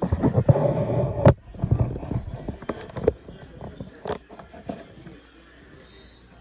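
VXS-1200M hand-crank siren cranked briefly and only softly, loudest in the first second or so. Clicks and knocks from the crank and rotor follow as it dies away after about five seconds.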